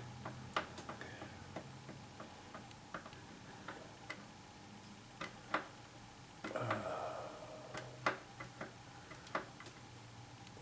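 Irregular light clicks of a hand screwdriver turning a screw through a rubber-bushed spacer into a glued plastic motor-mount stud, a few clicks a second, with a brief rustle about two-thirds of the way through.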